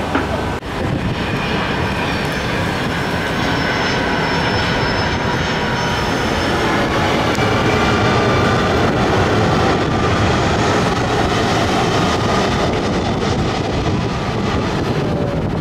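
Boeing 757-200 jet airliner on approach passing overhead: a steady rushing drone of its engines with a faint whine. It swells through the middle and eases near the end.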